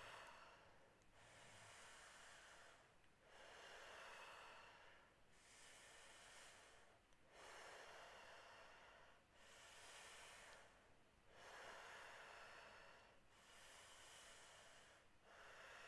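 A person breathing deeply in and out in a steady rhythm, about two seconds per inhale or exhale with a brief gap between them. This is the continuous power breathing of the Wim Hof method, with no pause between breaths. The breathing is faint.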